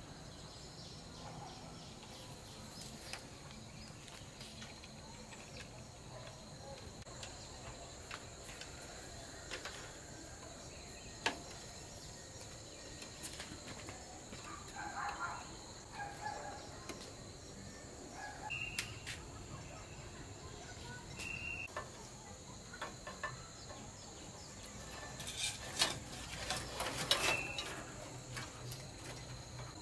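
Quiet rural ambience: a steady high insect drone, a couple of short bird chirps around the middle, and the rustling and clicking of a bare branch being handled and tied to a post, loudest near the end.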